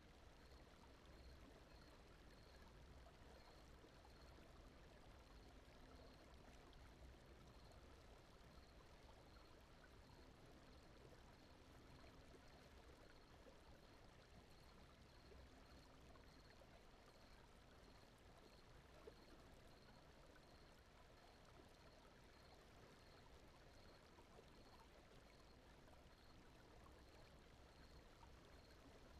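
Very faint, steady brown-noise sleep bed that sounds like a gently running stream, with no breaks or changes.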